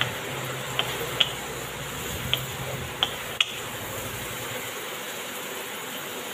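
Wooden spatula stirring prawns in thick onion gravy in a black kadai, over a steady sizzle. The spatula knocks and scrapes sharply on the pan about six times in the first three and a half seconds.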